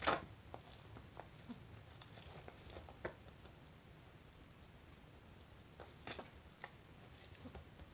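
Kitten wrestling and kicking a plush shark toy on a vinyl floor mat: faint scattered scuffs, soft thumps and rustles, loudest right at the start and again in a short cluster about six seconds in.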